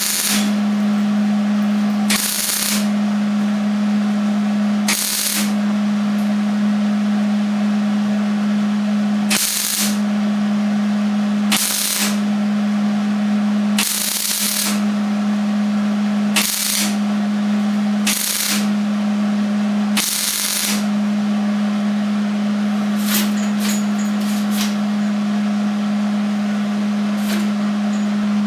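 Electric welder tack-welding small steel patches into the old emblem holes on a truck's sheet-steel front fender: about nine short bursts of crackling arc, each about half a second and a few seconds apart, then a few shorter crackles near the end, over a steady low hum.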